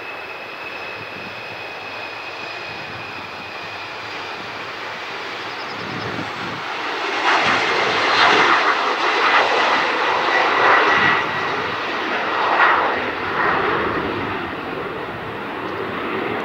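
An Embraer E-Jet airliner's twin turbofan engines run at takeoff power through the takeoff roll and climb-out. A high steady whine comes first. About seven seconds in it swells into a much louder crackling noise as the jet lifts off and passes, then eases slightly near the end.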